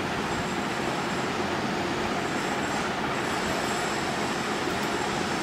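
Steady background noise: a constant hiss and rumble with no distinct events.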